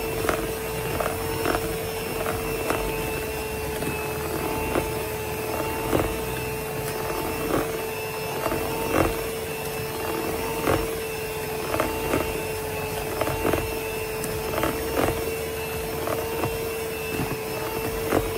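Electric hand mixer running steadily at its lowest speed, its motor giving a constant whine, as it beats egg yolk batter. Its wire beaters knock against the sides of the plastic bowl about once a second.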